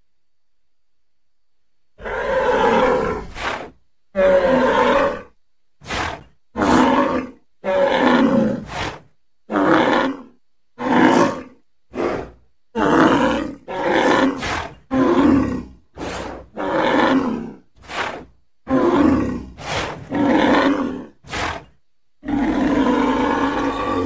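A bull bellowing in a long run of short calls, roughly one a second, starting about two seconds in, with a longer call near the end.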